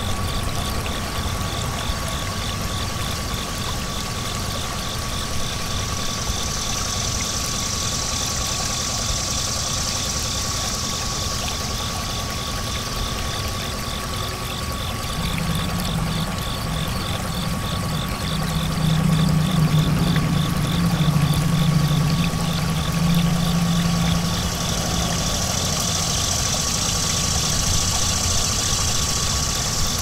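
A steady engine-like drone with a constant thin whine over it, the low drone growing louder in the middle; a high hiss swells up and fades twice.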